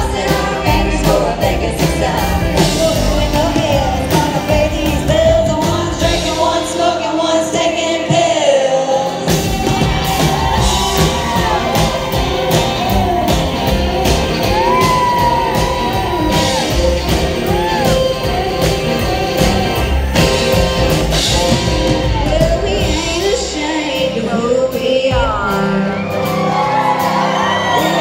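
Live country band playing, with three women singing together into stage microphones.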